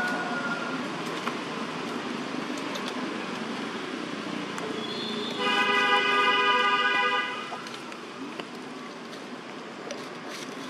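A vehicle horn sounds once, a single flat-pitched toot held for about two seconds starting about five seconds in, over a steady background noise.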